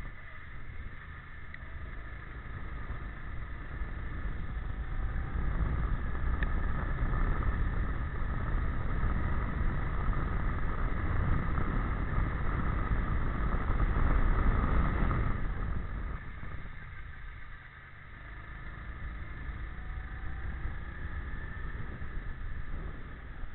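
Onboard sound of a go-kart engine under throttle, building in loudness along a straight, dropping away sharply about fifteen seconds in as the driver lifts off, then picking up again.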